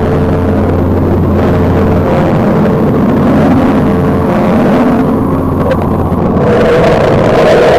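A loud, steady low rumbling drone with a hum underneath, swelling near the end.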